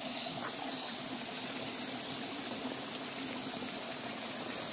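River water flowing, a steady, even rushing noise.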